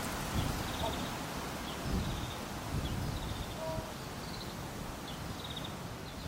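Wind gusting through leafy trees, with low gusts buffeting the microphone, while a small bird repeats short, buzzy high calls about once a second.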